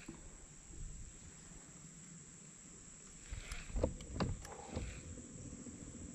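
Faint, steady insect chorus. A few soft knocks and clicks between three and five seconds in, from a baitcasting rod and reel being worked.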